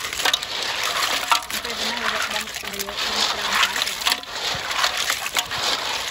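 Loud splashing and sloshing water with many sharp clicks and clatters mixed in, and faint voices under it.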